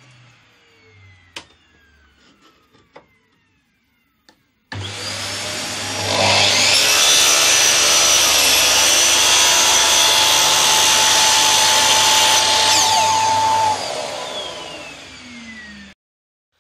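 A dust collector switches on, then a Makita slide compound miter saw's motor spins up with a rising whine and runs loud through a cut in a board. About 14 seconds in the saw switches off and its whine falls as the blade coasts down, while the dust collector keeps running until it cuts off suddenly.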